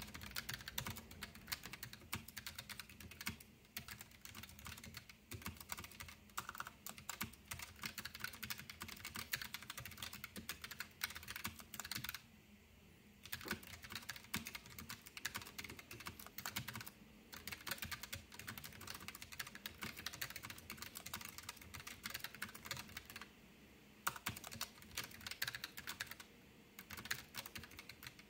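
Typing at a normal pace on a Keychron K1 low-profile mechanical keyboard with brown tactile switches: a rapid run of key clicks, broken by a brief pause about halfway through and two short pauses near the end.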